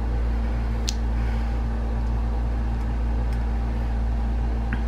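A steady low hum of a running machine fills the room, with one small sharp click about a second in as a screwdriver bit snaps into its handle.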